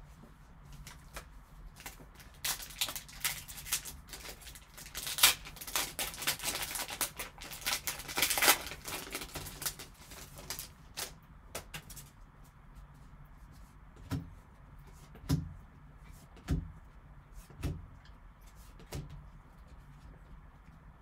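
Foil trading-card pack wrapper crinkling and tearing open, a dense crackle for several seconds. Then about five soft thumps roughly a second apart as the cards are handled on the table.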